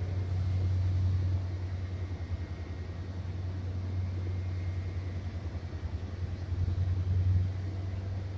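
Low, steady engine rumble from an idling vehicle, swelling briefly about a second in and again near the end.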